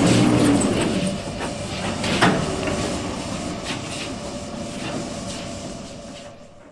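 Railway train running with rattles and metal clanks, one sharp clank about two seconds in, fading steadily into the distance until it dies away at the end.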